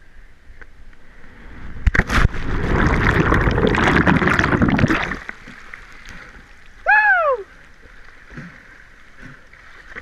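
A person jumps from a sea cliff into the sea: a sharp hit about two seconds in as they enter the water, then about three seconds of loud rushing, churning water as they go under. About seven seconds in comes a short whooping shout that rises and then falls in pitch.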